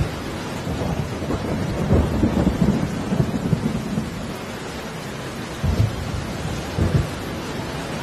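Steady hiss of rain, broken by short low rumbling thumps a few times.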